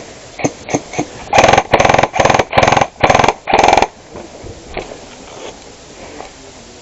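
Airsoft gun firing close by: a few single shots, then five short full-auto bursts of rapid rattling shots within about two and a half seconds.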